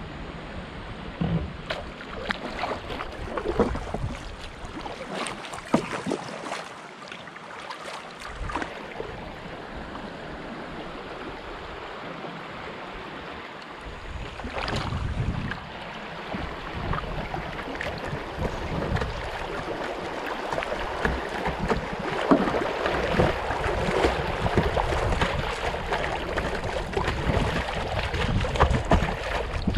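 Water splashing and rushing around a kayak, with irregular paddle splashes. The water gets louder and busier about halfway through.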